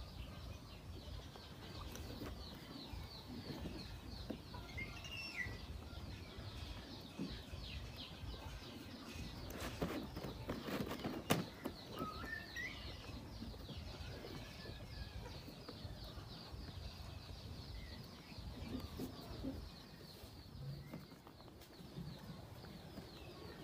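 Birds chirping and chickens clucking, with many short high chirps throughout, a few gliding calls, and one sharp click about eleven seconds in.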